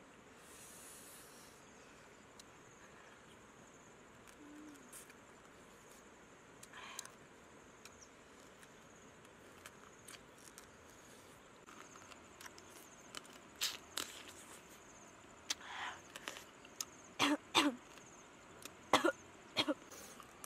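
Close-up eating sounds of a person biting and chewing cooked crab: short crunches and mouth smacks in clusters, growing more frequent and loudest in the last few seconds.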